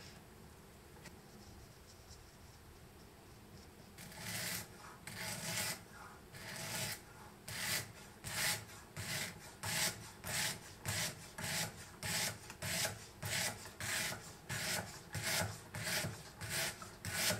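240-grit sandpaper on a foam-padded pencil, held in a sharpening jig's guide arm, rubbed back and forth along the curved edge of a steel tracker knife to sharpen a convex grind. The rasping strokes start about four seconds in and repeat steadily, getting quicker to about two a second.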